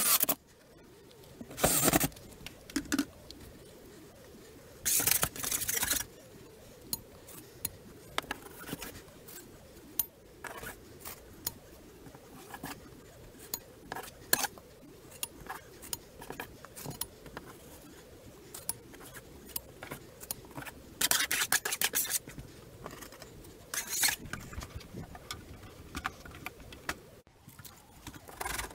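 Cordless drill running in short bursts as it backs screws out of a drywall ceiling panel. Between the runs come clicking, scraping and crackling as the panel is worked loose and taken down.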